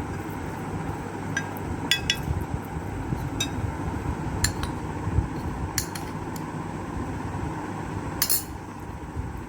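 Spoon and dishes clinking and tapping: about seven short, scattered clinks over several seconds, one slightly longer near the end, over a steady low background hum.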